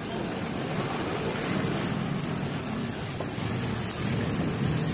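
Parotta dough rounds sizzling in oil on a large flat iron tawa: a steady, even hiss like rain.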